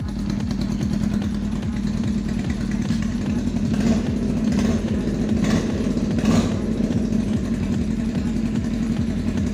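Custom Kawasaki VN500 motorcycle engine running at idle, with a few brief louder blips of the throttle around the middle.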